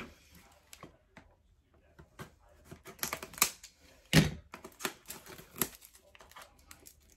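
Small cardboard product box being handled and opened by hand: a string of irregular light clicks and taps, with a sharper knock about four seconds in.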